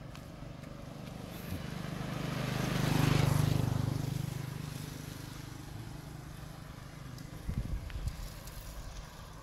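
A motor vehicle drives past, its engine hum and road noise swelling to a peak about three seconds in and then fading away.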